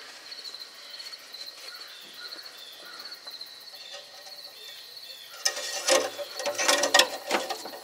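Crickets chirping steadily in the background. About five seconds in, a run of louder clicks and rattles starts: metal parts being handled.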